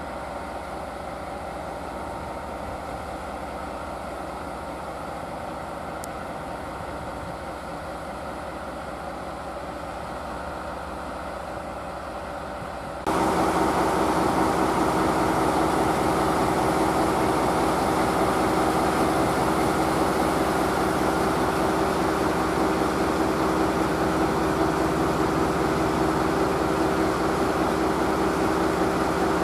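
Diesel locomotive engines idling steadily. About 13 seconds in the sound abruptly becomes louder, with a steady droning hum.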